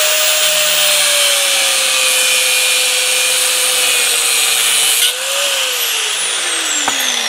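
Angle grinder cutting through the outer race of a tight roller bearing on a gearbox mainshaft: a steady grinding hiss over the motor's whine. About five seconds in the disc comes off the steel and the grinder winds down, its whine falling steadily in pitch.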